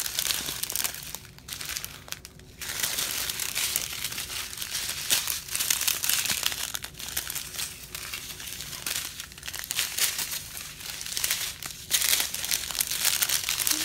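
Strips of small clear plastic bags of diamond-painting drills crinkling as they are handled. A near-continuous crackling rustle with a few brief pauses.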